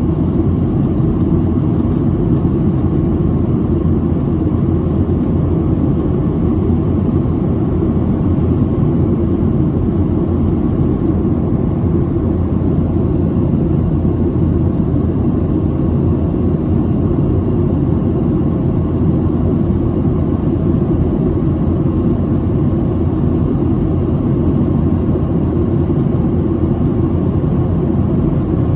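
Steady low rumble of a Boeing 737-700's cabin noise, engine and airflow noise, holding even throughout.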